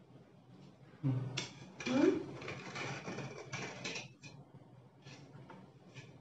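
An aluminium cake tin being handled over a cardboard cake board: a run of scrapes and knocks as it is lifted and tipped, then faint ticks near the end as a knife is worked around the inside of the tin to loosen the sponge.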